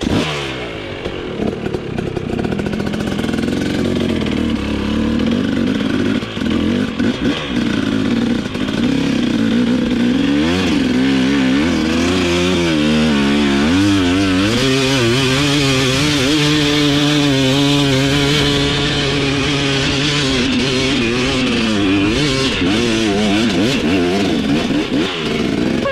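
Dirt bike engine running, its pitch rising and falling again and again as the throttle is worked on and off. It grows stronger and fuller from about ten seconds in.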